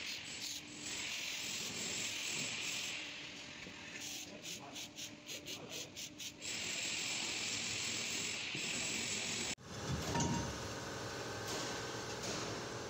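Aerosol can spraying onto a rusty wheel hub and studs: a long hiss, then a run of short quick squirts, then another long hiss. After a sudden break, a lower, rougher sound as the brake rotor spins on the hub.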